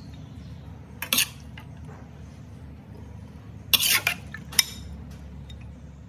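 Metal spatula scraping and clinking against a metal wok while scooping out stir-fried food: one short scrape about a second in and a longer clatter of scrapes around four seconds, over a steady low hum.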